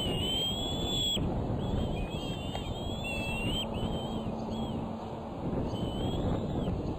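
Bald eaglets giving thin, high, wavering whistled begging calls, several drawn out for about a second, over a steady low background rush.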